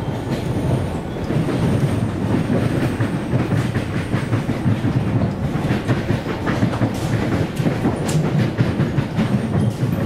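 Siemens EMU train heard from inside while running: a steady low rumble of wheels on the track, with irregular sharp clacks as the wheels pass over rail joints.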